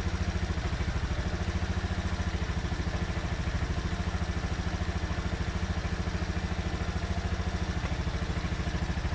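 Small scooter-type motorcycle engine idling steadily with an even, regular pulse, left running while its battery charging voltage is measured.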